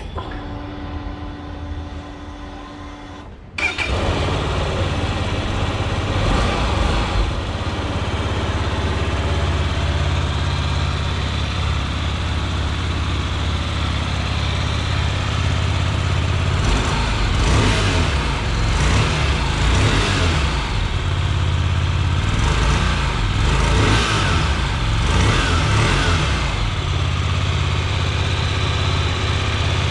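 2018 Hyosung GT250R's 250 cc V-twin engine catching about three and a half seconds in and idling through its stock exhaust. From about halfway on, the throttle is blipped in a series of short revs that rise and fall.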